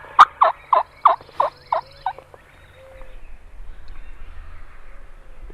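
A series of loud turkey yelps, about three notes a second, seven in all, ending about two seconds in.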